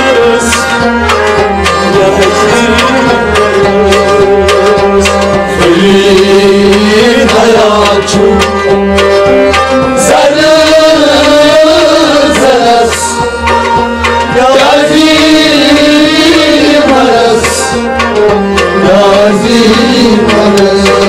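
Kashmiri Sufiyana music: tabla drumming under a wavering melody, playing continuously.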